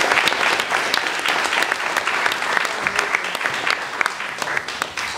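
Audience applauding, many hands clapping at once, the clapping slowly thinning and getting quieter toward the end.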